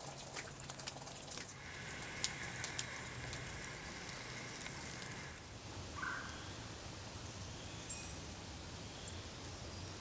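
Spring woodland ambience with birds: a run of sharp chips early on, then a steady high trill for a few seconds that cuts off about halfway through, followed by a short call and faint high bird notes over a low background rumble.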